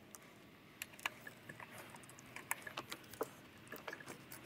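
Faint, scattered light clicks and taps of hand tools and small parts being handled, several a second and irregular, while ignition coil packs are being installed.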